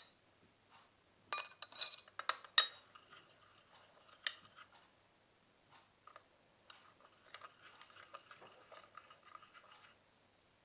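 A spoon clinking sharply against a bowl several times in quick succession about a second in, once more a little later, then softer scraping as it stirs glue slime with added borax water.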